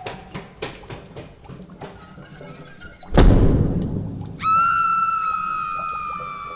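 Horror sound effects: scattered small knocks and drips, then a heavy boom about three seconds in that rings away slowly, followed by a long high-pitched tone that sags slightly in pitch.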